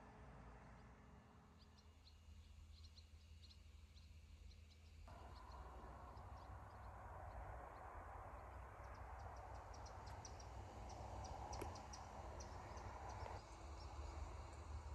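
Faint outdoor ambience: small birds chirping and twittering, busier in the second half, over a low steady rumble. The background noise shifts abruptly twice.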